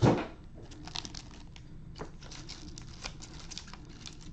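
A single thump right at the start, then foil card-pack wrappers crinkling and rustling as gloved hands handle them and stack them.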